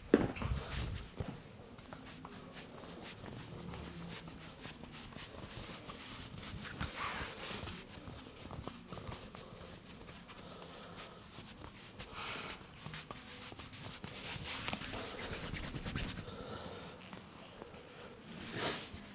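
Hands massaging a person's back: rubbing and patting with scattered light taps and brief rustles, and one sharp smack right at the start.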